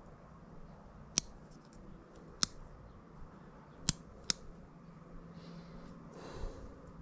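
Four sharp, irregularly spaced clicks from small parts and hand tools being handled while the car's light switch is taken out, then a brief soft rustle near the end.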